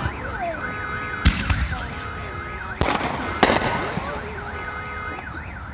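Three sharp fireworks bangs, the last two close together, with a car alarm sounding underneath in a repeating cycle of tones.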